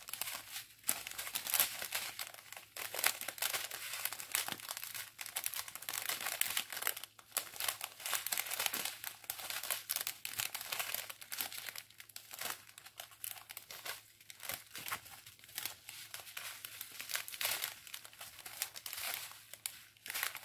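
Strip of joined clear plastic sachets of round diamond-painting drills crinkling and crackling as it is unrolled and held up, an irregular rustle of handled plastic throughout.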